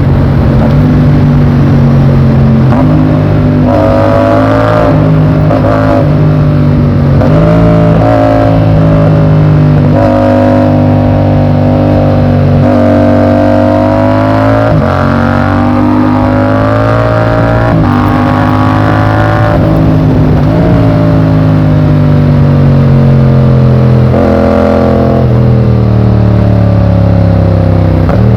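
Yamaha MT-07's 689 cc parallel-twin engine under way, repeatedly revving up in pitch and dropping back as it shifts through the gears, with a longer easing-off and falling pitch past the middle.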